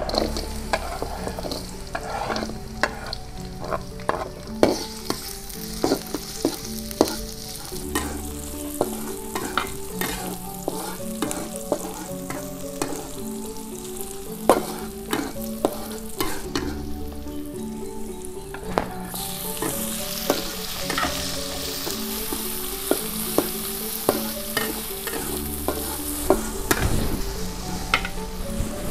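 Sliced shallots, garlic, chillies and tomatoes frying in oil in a steel wok, sizzling, while a metal spatula repeatedly scrapes and knocks against the wok as they are stirred. The sizzle gets louder about two-thirds of the way through.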